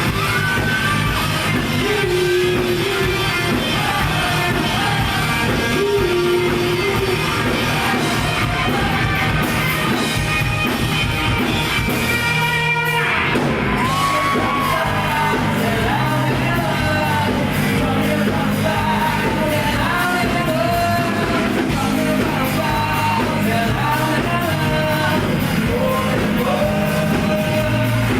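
Rock band playing live with a sung lead vocal over the full band; a short rising sweep comes about twelve seconds in.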